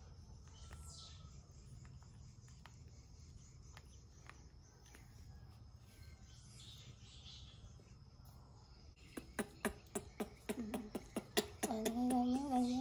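Baby macaque suckling at a milk bottle's teat: faint sucking at first, then a quick run of sharp wet smacking clicks from about nine seconds in. Near the end it lets out a short whimpering call as the teat leaves its mouth.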